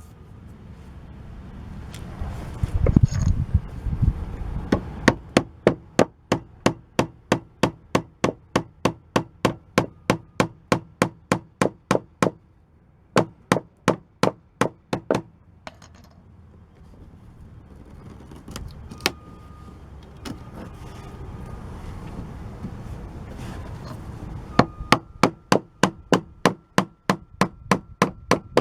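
Hammer driving a wood chisel to cut rotted wood out of a door frame: runs of quick, even blows, about three a second, stopping for several seconds in the middle before starting again near the end.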